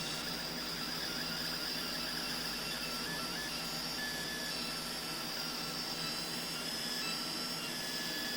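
Laser engraving machine running as it engraves a sandblasted aluminium part: a steady high whine over a constant hum, with short tones that start and stop as the beam is moved around the part.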